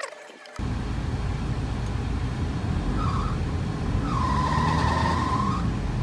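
Toyota Land Cruiser Prado engine running with a steady low rumble that starts suddenly about half a second in. Over it a high squeal comes in briefly about three seconds in and again for about a second and a half from about four seconds in. This is the abnormal noise that comes with the air conditioning switched on.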